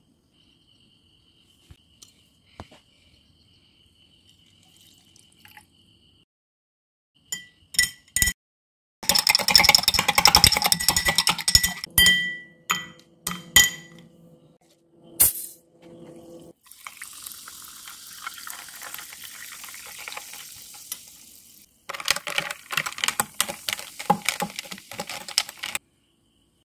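Ice cubes clattering and clinking into a glass, then soda water poured in with a steady hiss, followed by crackling fizz.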